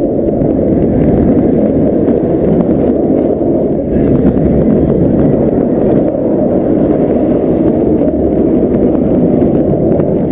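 Heavy wind buffeting the microphone of a camera riding a speeding Shambhala roller coaster train, mixed with the train's rumble along the track; loud and steady throughout.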